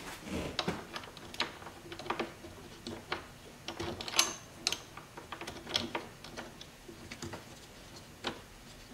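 Irregular small clicks and scrapes as a spin nut is turned by hand onto a screw, against the backing plate that holds a wind-screen panel to its bracket.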